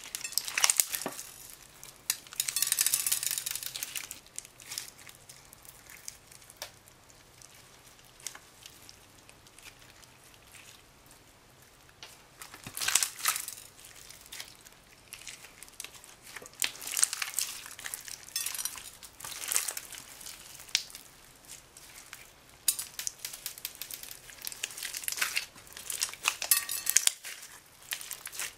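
Blue slime mixed with foam beads being squeezed and kneaded by hand, giving wet crackling and squelching in irregular bursts with quieter pauses between.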